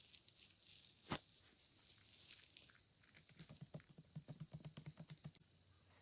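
Bearded dragon biting and chewing salad greens: faint, crisp clicks and crunches, with one sharp snap about a second in and a quick, even run of chewing clicks in the second half.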